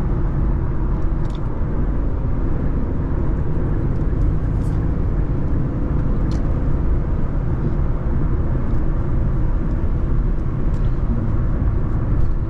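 Infiniti Q50 cruising at highway speed: a steady drone of engine and road noise, heard from inside the car.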